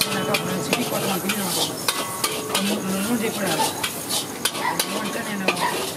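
A long metal spatula scrapes and knocks irregularly against a large wok as egg bhurji is stirred, over steady sizzling of frying food. A faint low wavering hum runs underneath.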